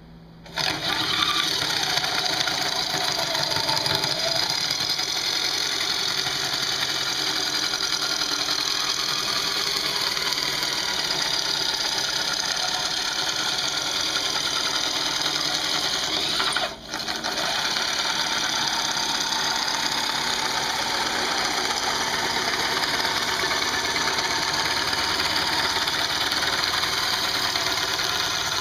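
Corded electric drill spinning a wooden dowel through a Veritas Dowel Maker, the cutter blade shaving it down to an arrow shaft: steady motor running with the hiss of the wood being cut. It starts about half a second in and briefly drops out about two-thirds of the way through.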